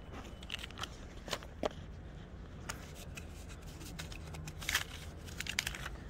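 Crinkling of a plastic KF94 face-mask wrapper as it is picked up and handled: irregular sharp crackles, thickest about five seconds in.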